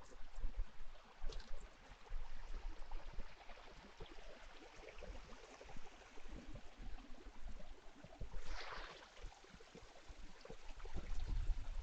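A hiker's footsteps on a muddy hill track and his heavy breathing as he climbs out of breath, with one loud exhale about eight and a half seconds in. Wind rumbles on the microphone.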